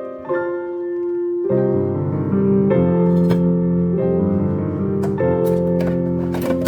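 Background piano music: held notes, with a fuller, lower part joining about a second and a half in.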